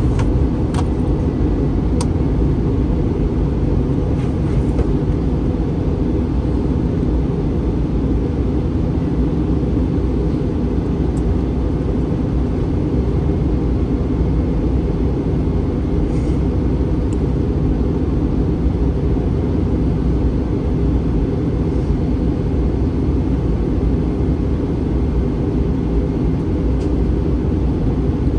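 Steady low rumble of cabin noise inside an Airbus A321 airliner, from its engines and airflow, with a few faint ticks.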